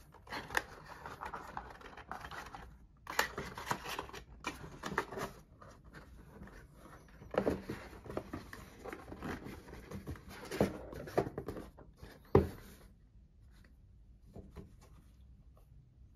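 Cardboard packaging of a tablet box being handled: irregular rustling and scraping of paperboard inserts and box, with light knocks and one sharper knock about three quarters of the way through.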